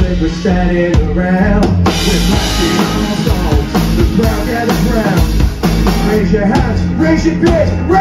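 Live band playing: a man singing over acoustic guitar, electric guitar and a drum kit.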